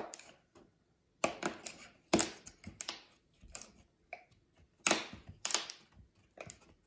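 Thin plywood panels clicking and knocking lightly, at irregular intervals, as a side wall's tabs are wiggled into their slots on the assembled tower.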